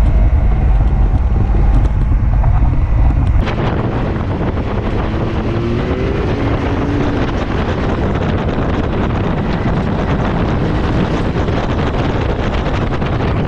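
Can-Am Maverick side-by-side driving down a gravel trail, its engine under heavy wind noise on the microphone. A loud low rumble fills the first three and a half seconds, then gives way to a steadier rush with a faint rising whine a few seconds later.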